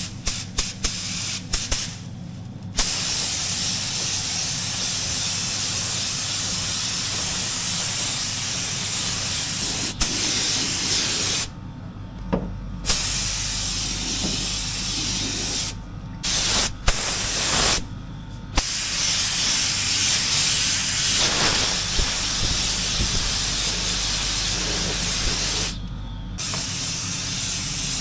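Compressed-air spray gun spraying paint: a loud, steady hiss that stops and starts again several times as the gun is paused. A steady low hum runs underneath.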